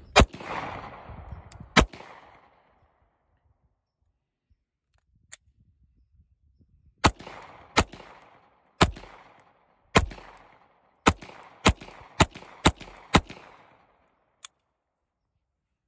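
9mm pistol being emptied in a mag dump: about a dozen shots, each with a trailing echo. Two come early, then after a pause of about five seconds a quicker string of shots follows.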